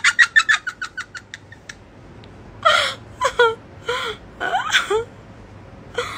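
A woman laughing hard: a quick run of breathy laughs that fades out in the first two seconds, then a few high, gasping bursts of laughter.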